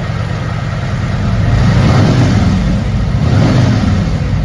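2024 CVO Road Glide's 121 Milwaukee-Eight V-twin running through a Jekill & Hyde variable exhaust, revved twice, about two and three and a half seconds in.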